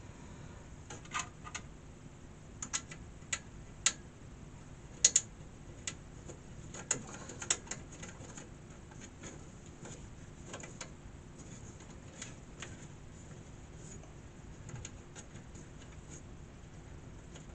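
Sharp clicks and taps of an Asus GT 710 graphics card and its metal bracket being fitted into a PC case's expansion slot. About a dozen come in the first eight seconds, with scattered fainter ones after.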